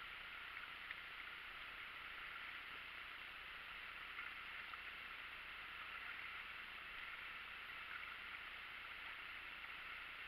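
Faint steady hiss with a few soft ticks, with no sound of rushing water.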